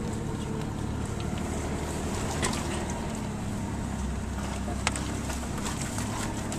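Mitsubishi Montero engine running steadily at low revs, with two brief sharp knocks about two and a half and five seconds in.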